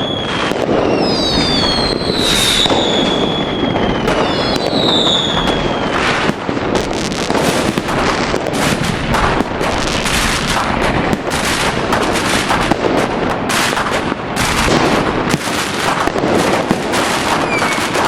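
Fireworks going off: for the first few seconds several whistling shells with falling whistles sound over a dense run of bangs, then a long rapid crackle of many small bursts takes over.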